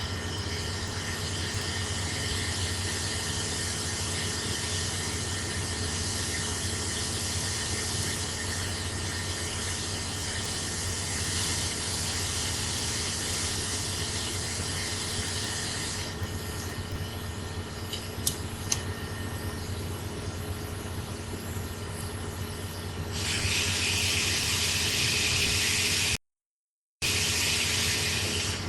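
Steady hiss of blowing air over a low electrical hum. It thins out about halfway through, grows louder again a few seconds before the end, then cuts out briefly.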